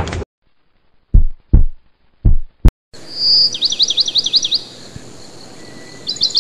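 Three short low thuds and a click, then a steady hiss with a fast, high chirping trill, bird-like, heard twice: once about three and a half seconds in, and again at the very end.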